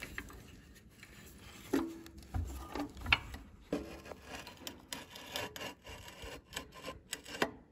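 Scattered metal clicks, scrapes and a few sharper knocks, some with a short ring, as an Allen wrench works the bolts on a SteelMax dry-cut chop saw and the saw is swung on its base to a new miter angle.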